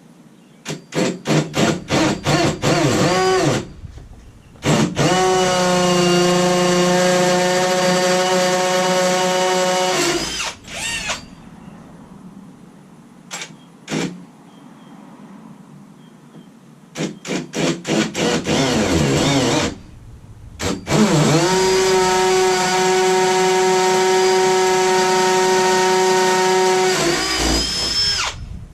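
Hammer drill on the hammer setting drilling two holes into brick, loud. Each hole starts with a few short trigger bursts, then a steady run of about five to seven seconds that drops in pitch as the drill stops.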